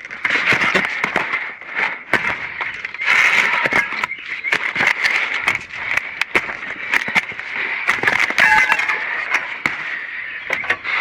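Busy clatter of knocks, rattles and scrapes as junk is shifted around by hand, with many sharp impacts in quick, irregular succession.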